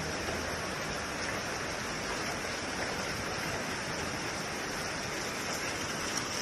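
Steady, even rushing hiss with a bright high band, like running water or rain.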